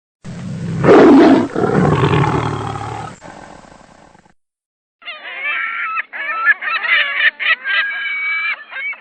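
A big cat roaring once, loudest about a second in and fading away over the next three seconds. After a short gap, a different clip of a flock of birds calling over one another.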